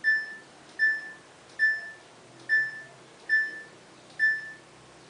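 Washing machine's electronic control panel beeping: six short, identical beeps at one pitch, evenly spaced a little under a second apart, as the machine is set up for a drain-and-spin test.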